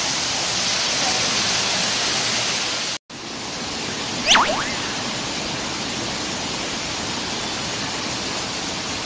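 Steady rush of an indoor waterfall splashing into a pool, with a brief break about three seconds in. A little over a second after the break, a single loud, sharp whistle slides quickly down in pitch.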